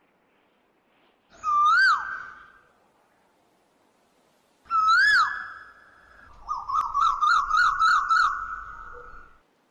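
A bird calling: two loud whistled notes a few seconds apart, each a quick rise and fall held briefly, then a warbling trill of about six quick wavers lasting some three seconds.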